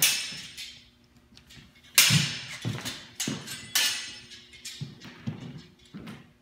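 Steel longswords clashing in fast sparring: a quick series of sharp, ringing blade strikes, loudest in a cluster of about four between two and four seconds in, with lighter clinks after, and thudding footfalls on a wooden floor.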